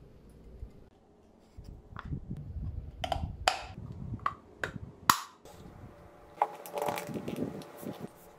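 Light wooden clicks and knocks as a small beech divider is fitted into a mahogany box, wood against wood with handling rubs between them; the sharpest knock comes about five seconds in, followed by softer rubbing and scraping on the wood.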